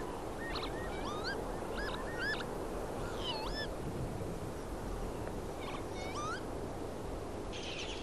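Northern lapwing calling in display flight: wheezy, slurred calls that swoop up and down in pitch, a quick run of them over the first few seconds and another short cluster about six seconds in.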